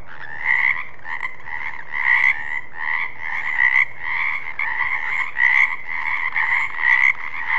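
Frogs croaking in a chorus, the calls following one another about once or twice a second.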